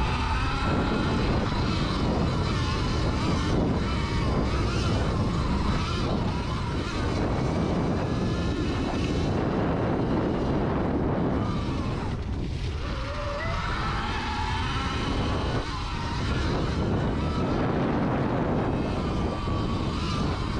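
Sur-Ron electric dirt bike's motor whining, rising and falling in pitch as the rider speeds up and slows, over a heavy low rumble of riding noise.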